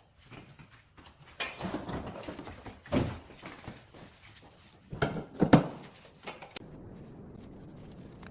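Camping gear being unpacked by hand: rustling packaging with several knocks and thumps. The loudest cluster of knocks comes about five seconds in.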